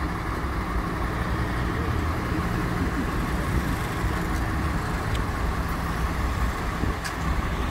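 Hidromek 102S backhoe loader's diesel engine running steadily at idle.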